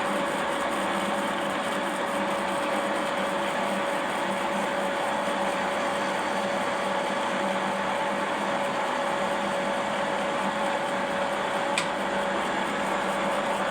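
Conventional metal lathe running steadily: a constant machine noise with a steady whine, and one sharp click near the end.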